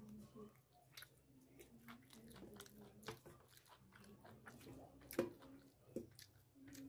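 Close chewing and biting sounds of a man eating chicken curry and rice by hand: quiet wet mouth clicks and smacks, with one sharp click about five seconds in and another about a second later.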